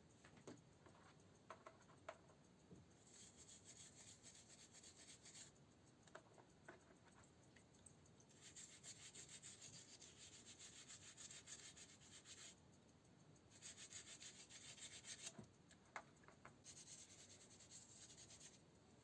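Faint hand sanding of a wooden clock case, in four spells of quick back-and-forth strokes, with a few light taps between them.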